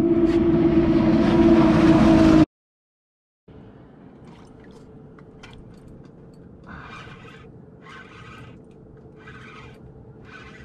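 A loud engine drone with a steady pitch, cut off abruptly about two and a half seconds in. After a moment of silence comes a much quieter steady hum with faint sounds coming and going every second or so.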